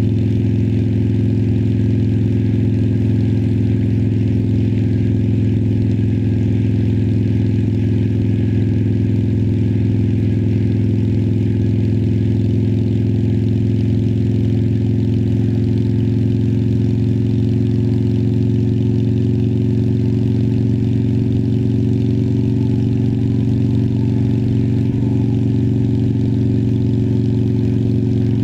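Harley-Davidson Sportster Iron 1200's air-cooled V-twin running through Vance & Hines Twin Slash slip-on exhaust, holding a steady engine speed.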